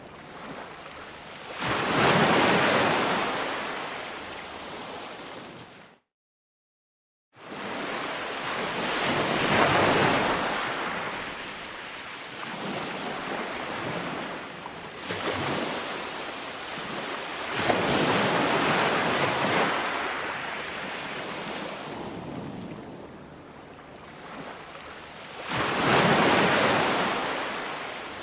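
Ocean surf breaking on a shore, each wave swelling and washing back over several seconds, five or so surges in all. About six seconds in the sound cuts out completely for just over a second, then the surf returns.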